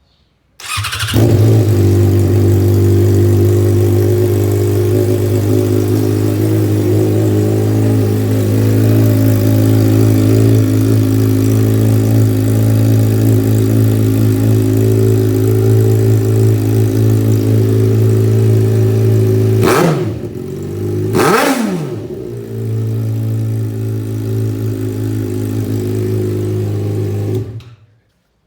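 Yamaha XJ6's inline-four motorcycle engine starts about half a second in and idles steadily and loudly. It gets a couple of quick throttle blips about two-thirds of the way through and is switched off near the end. The stock exhaust has been cut open underneath and its threaded plug left out, giving it a louder, sporty note.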